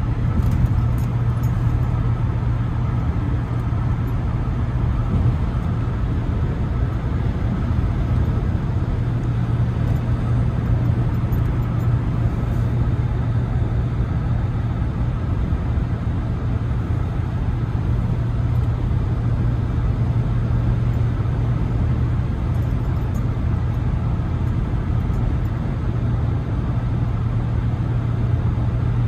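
Steady road and wind noise inside the cabin of a NIO ES8 electric SUV cruising at about 110 km/h, with a constant low drone and no engine sound.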